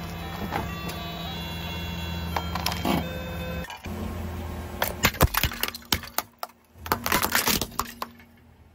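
A car engine idles while a pink toy guitar, pressed by hand, plays a short electronic tune of stepped beeping notes. Then a white dish cracks and shatters under a car tyre in two quick runs of sharp cracks.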